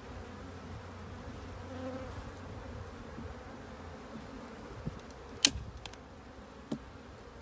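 Honeybees buzzing steadily. About two-thirds of the way through come a few sharp clicks from a stapler that is not firing properly.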